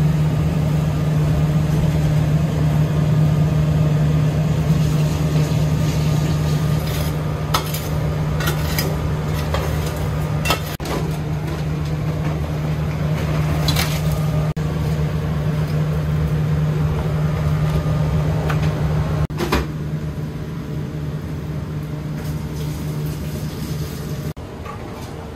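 Steady low hum of a ventilation fan, with several sharp clinks and clatters of metal kitchenware scattered through; the hum cuts off near the end.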